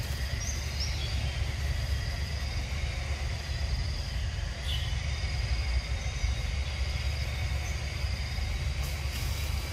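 Outdoor forest ambience: a steady low rumble with a faint, constant high-pitched insect drone above it, and a few short chirps near the start and again about halfway through.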